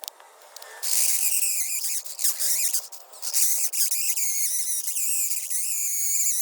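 Drill with a diamond bit grinding into hard mortar inside a concrete wall block: a high, wavering squeal that starts about a second in, with two short breaks, and stops near the end. The mortar around the conduit is hard enough that it is killing the diamond bit.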